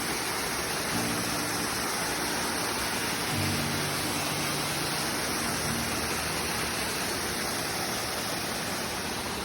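Steady rush of a waterfall, an even wash of falling water.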